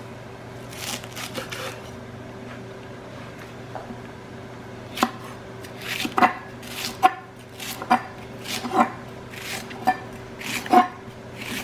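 Chef's knife chopping green onion on a bamboo cutting board: about a dozen sharp knocks of the blade on the wood at an uneven pace, starting about five seconds in, over a steady low hum.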